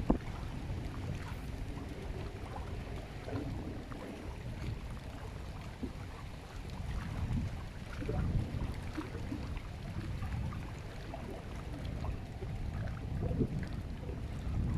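Wind buffeting the microphone: a low rumble that swells and eases in gusts, with scattered small clicks and a sharper knock at the very start.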